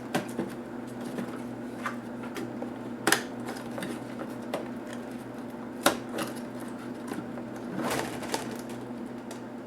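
Sharp clicks and knocks of plastic laptop parts and tools being handled during disassembly, a few seconds apart, with a slightly longer scraping click near the end, over a steady low hum.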